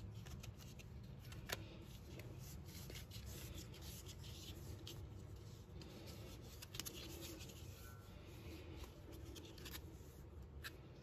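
Faint rubbing and rustling of braided starter rope being wound by hand onto a snowmobile recoil starter's plastic pulley, with a few light clicks of the parts being handled.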